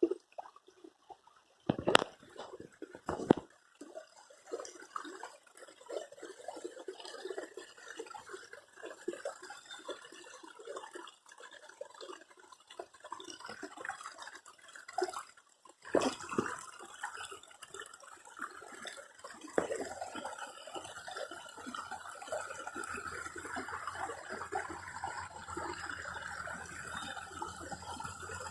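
Water running and trickling, with two sharp knocks about two and three seconds in.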